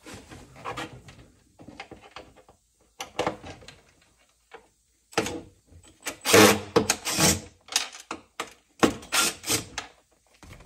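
Cordless drill-driver run in several short bursts, backing fasteners out of a plastic seat-console bracket, with plastic scraping and rattling between the bursts; the longest bursts come a little past the middle and near the end.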